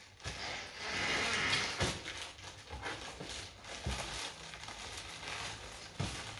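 Plastic bags of baby clothes crinkling and rustling as they are handled and unpacked, with a few soft knocks.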